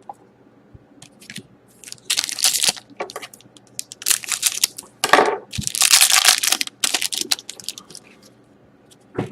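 A trading-card pack wrapper being torn open and crinkled in the hands, in a few bursts of crackling, the loudest in the middle.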